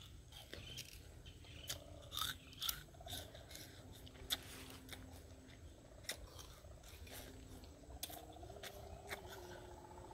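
Roasted sugarcane being bitten and chewed: irregular crunching and snapping clicks as the fibrous stalk is torn and chewed.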